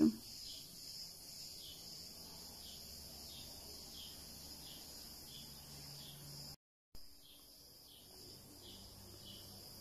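Faint background hiss with soft, evenly spaced chirps a bit more than once a second; the sound cuts out completely for a moment about two-thirds of the way through.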